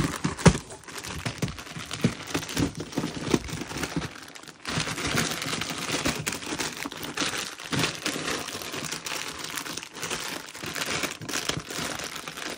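Plastic snack wrappers crinkling and cardboard scraping as hands press and wedge packets down into a packed cardboard box, with many small irregular crackles and a sharp knock about half a second in.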